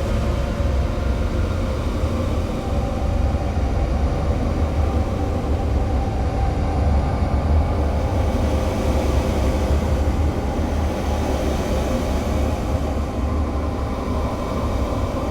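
Steady, dense low rumble with a noisy wash over it and a few faint held tones, unbroken and even in loudness: a noise passage within an experimental music track.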